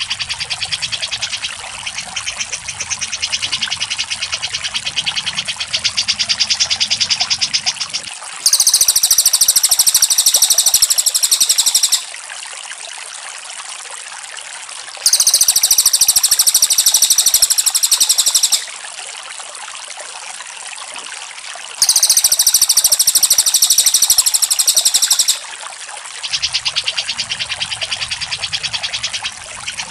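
Recorded songbird chatter from a bird-song training track of cucak jenggot and cililin songs. A dense, rapid trill is followed by three loud bursts of fast, very high chattering, each about three and a half seconds long, with short pauses of steady hiss between them. The dense trill returns near the end.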